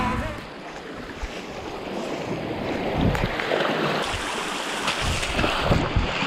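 Small waves washing over rocks in shallow seawater, with irregular splashes of feet wading through it.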